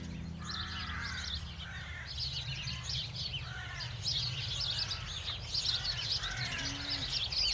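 Birds chirping and calling as a busy outdoor chorus: many quick high chirps overlap, with lower arched calls every second or so, over a low steady rumble.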